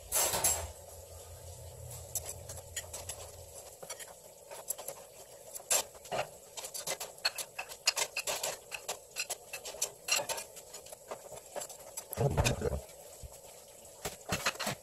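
A long sashimi knife slicing a sea bass fillet on a wooden cutting board, its blade tapping the board in a quick, uneven run of sharp clicks. A low hum stops about four seconds in, and there are two heavier thuds, one at the start and one about twelve seconds in.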